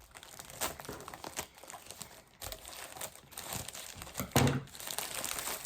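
Plastic packaging crinkling and crackling as it is handled, with a single thump a little past four seconds in.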